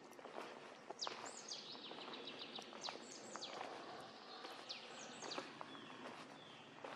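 Woodland birds singing and calling, a run of quick high chirps and down-slurred notes, over footsteps rustling through dry fallen leaves.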